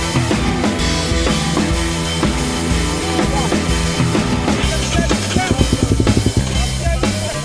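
Background music with a drum kit and bass holding a steady beat, with a fast drum fill about five seconds in.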